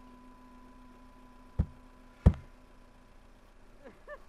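Two heavy punches landing on a body, about two-thirds of a second apart, as part of a beating. Near the end, a man gives a few short laughs.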